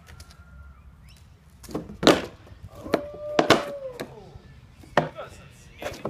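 A balance board clacking and knocking on concrete as a rider steps on and rocks it. There are about six sharp hits, the loudest about two seconds in and again around three and a half seconds.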